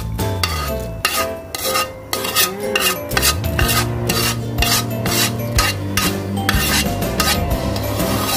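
Metal spoon stirring and scraping in a pot of ginisang munggo (mung bean stew) with its sautéed garlic, onion and tomato just added, in quick repeated strokes about three a second. Background music plays along.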